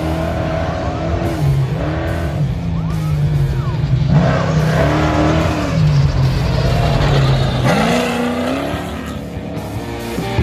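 Off-road race truck's engine revving hard as it speeds past on a dirt course, its pitch rising and falling again and again. Music plays underneath.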